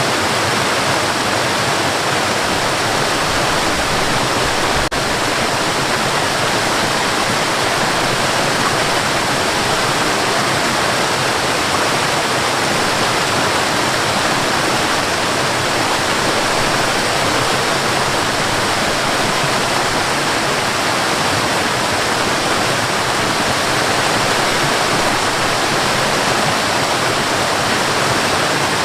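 Waterfall on a forest river: a loud, steady rush of falling water with no change through the whole stretch.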